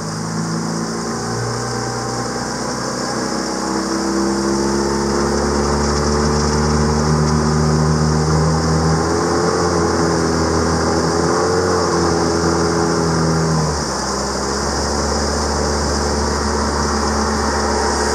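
Small tiller outboard motor running a small aluminium boat along under way. Its note climbs over the first few seconds and then holds steady. About 14 seconds in, the note drops abruptly as the engine is throttled back, and it keeps running at a lower speed.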